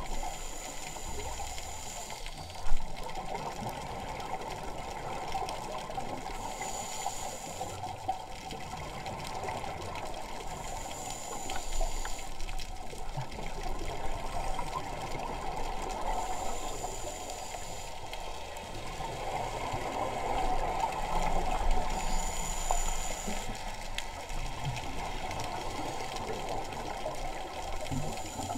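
Underwater scuba breathing through a regulator: a brief hiss recurs about every five to six seconds, with bubbling, watery noise between. A single sharp knock comes about three seconds in.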